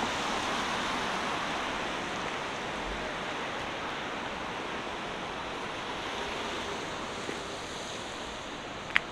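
Steady wash of downtown street noise, traffic roar with no distinct vehicle standing out, easing slightly in level. A single short sharp click near the end.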